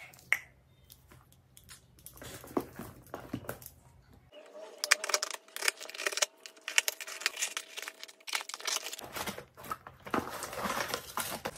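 A cardboard shipping box and its plastic wrapping being cut and torn open by hand: scattered clicks, crackling and rustling, with tearing sounds.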